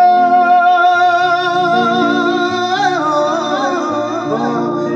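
Live Punjabi devotional song: a singer holds one long 'ho' note with a slight waver, then breaks into an ornamented run about three seconds in. Backing instruments sustain chords underneath over a stepping bass line.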